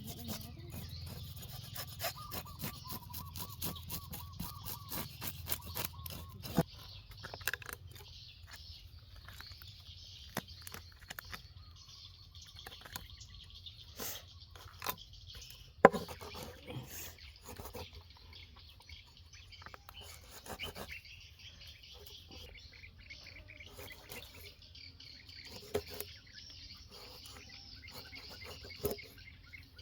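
Birds chirping against a steady high background, with many sharp clicks that thin out after the first few seconds and a few louder knocks, the loudest about sixteen seconds in.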